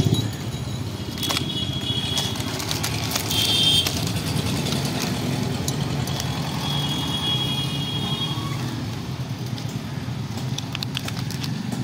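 Steady low hum of a motor vehicle running, with a few brief high-pitched tones that come and go and some light clicks.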